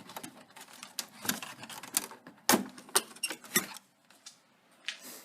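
Sharp plastic clicks and knocks from a car headlight housing and its retaining clips being pried loose and handled, about half a dozen in the first three and a half seconds, then one more near the end.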